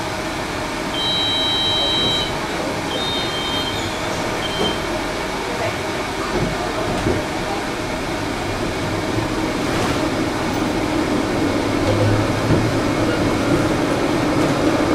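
Tram interior at a stop: a high electronic door-warning beep, two pitches at once, sounds twice in the first few seconds over the steady cabin hum. Near the end the low motor rumble builds as the tram pulls away.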